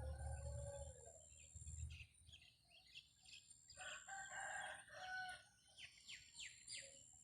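Faint rooster crowing about four seconds in, with small birds chirping rapidly and another pitched call with a low rumble at the start.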